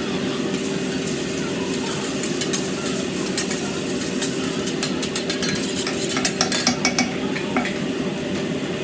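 Noodles sizzling on a steel hibachi griddle while a metal spatula scrapes and clicks against the plate, with a quick run of clicks about six to seven seconds in, over a steady low hum.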